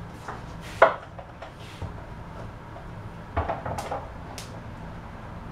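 Kitchen handling sounds: a sharp knock about a second in, then a few more knocks and clunks between three and a half and four and a half seconds in.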